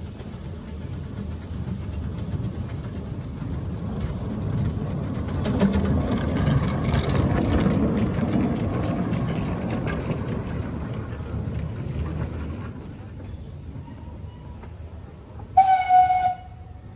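Narrow-gauge steam locomotive running past, its running noise swelling to a peak and then fading away, followed near the end by one short, loud blast on its steam whistle.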